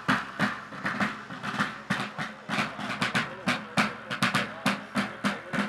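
Guild field drum beaten in a marching rhythm, about three to four sharp strokes a second.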